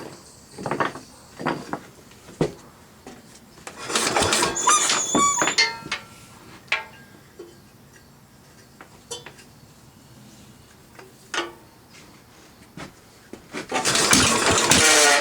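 Intermittent metallic squealing and scraping from the 9 hp cast-iron Briggs & Stratton 23CB engine's flywheel area, in separate bursts with clicks between them. The longest bursts come about four seconds in and near the end. The owner first took it for the cowling scratching on the flywheel, then traced it to the flywheel nut having worked loose on the crankshaft.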